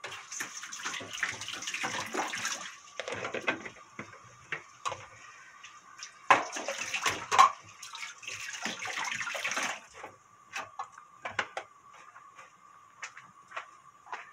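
Seafood doenjang stew bubbling hard in an earthenware pot on a gas burner: a hissing, popping boil that swells twice, then settles to scattered pops.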